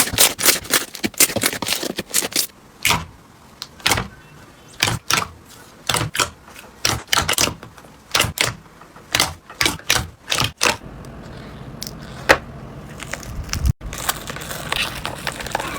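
Crunchy slime being squeezed and pressed, giving quick, irregular crackling pops, a few a second. About ten seconds in it changes to softer crackling over a low steady hum.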